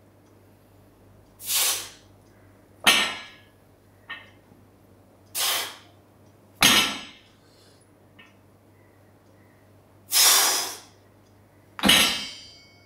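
Hard breathing through a set of trap-bar deadlift reps: three pairs of loud breaths, each a drawn breath followed about a second later by a sharper, sudden one that trails off, with faint short clinks between.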